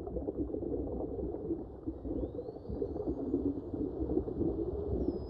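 Ambient soundtrack: a dense, low rumbling noise with faint high whistles that glide up and down in pitch, one a little after halfway and another near the end.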